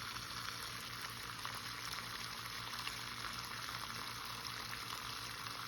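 Water running steadily with an even hiss from the drain of a 20-year-old hot water heater being flushed, carrying dirt and sediment out of the tank.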